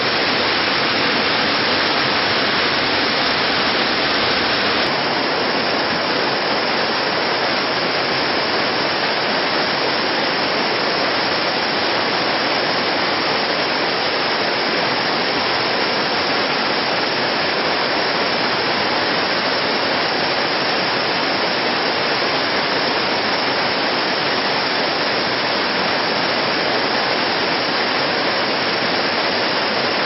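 Waterfall: water cascading over a rock face, a steady, even rushing.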